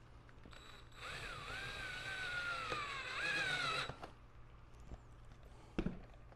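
Cordless drill running for about three seconds as it drives a screw into a kayak deck: a motor whine that wavers, sinks slowly in pitch, rises briefly and cuts off. A single sharp click follows near the end.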